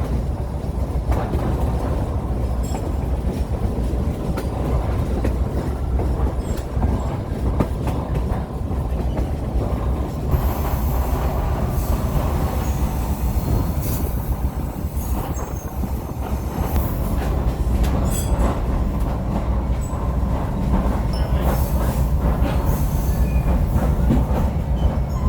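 Heritage excursion train heard from on board: a steady rumble of the passenger cars rolling along the track, with scattered wheel clicks. A higher hiss comes in about ten seconds in.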